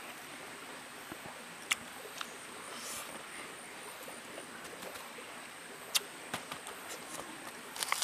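Eating with the hands: a few sharp mouth clicks and smacks over a steady faint hiss, one about two seconds in, another about six seconds in, and a quick cluster near the end as food goes into the mouth.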